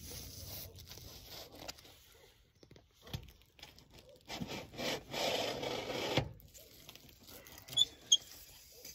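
Awning canvas rubbing and scraping as it is handled and folded by hand, loudest for a couple of seconds in the middle, with a couple of knocks from the support pole or arm. Near the end there are two sharp clicks a fraction of a second apart.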